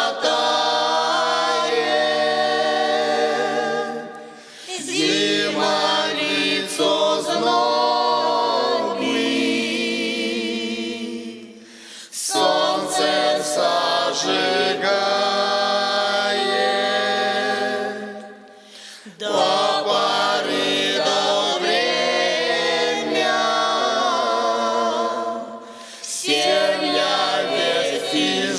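A vocal folk ensemble singing a Russian song a cappella in several-part harmony. It sings in long phrases about seven seconds apart, each ending in a brief dip where the singers breathe.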